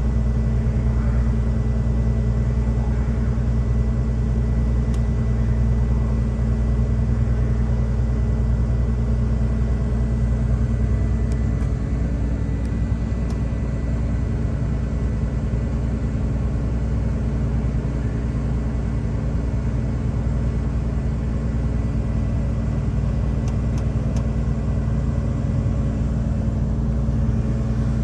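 A ferry's diesel engines running steadily at the quay before departure, a deep even hum.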